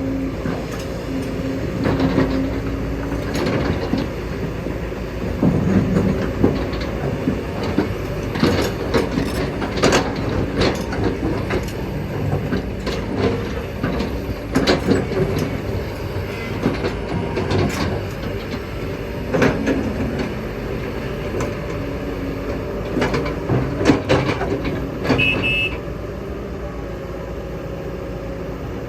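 Kobelco excavator's diesel engine running under load, with frequent sharp metallic clanks and knocks throughout.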